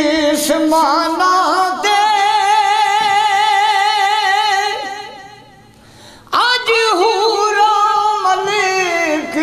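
A man singing a Punjabi naat in a high voice: a long held note with vibrato that fades out about five seconds in, then after a short pause the voice comes back with ornamented, sliding runs.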